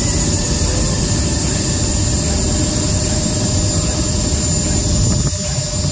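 Twin electric ducted fans on a converted RC glider running steadily at about half throttle, a loud, even whine; the thrust is quite strong even at that setting. The sound dips briefly near the end.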